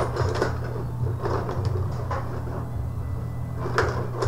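Tabletop rod hockey game in play: the metal control rods slide and rattle and the player figures clack against the puck, an irregular run of sharp knocks and clicks over a steady low hum.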